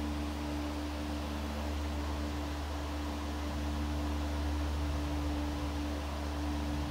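Steady low hum with a constant higher tone over an even background hiss.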